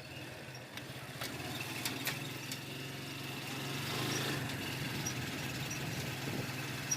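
An engine running steadily with an even, fast-pulsing hum and a few faint clicks.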